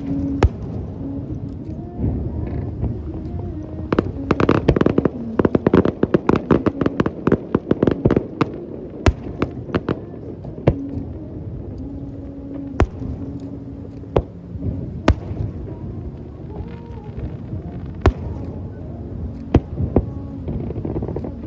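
Fireworks display: sharp bangs of shells bursting, with a dense rapid run of crackling reports about four seconds in lasting several seconds, then single bangs every second or two.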